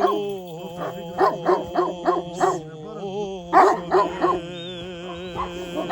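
Sheepdogs barking repeatedly, about three barks a second, over music with steady held drone tones.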